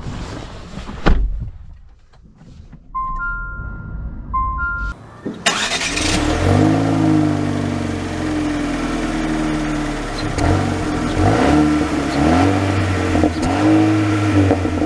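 A car door shuts with a thump about a second in, then a two-note dashboard chime sounds twice. About five seconds in, music starts abruptly and carries on to the end.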